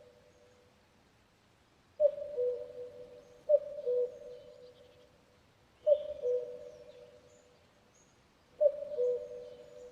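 Common cuckoo calling its two-note "cuck-oo", a higher note dropping to a lower one, four times at uneven spacing. Other birds chirp faintly in the background.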